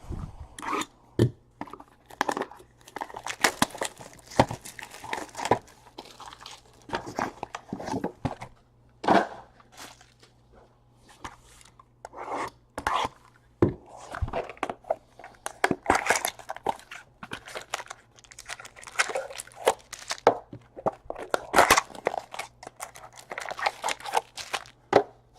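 Trading-card packs being opened and handled: foil wrappers crinkling and tearing, with irregular clicks and rustles of cards being sorted, over a faint steady low hum.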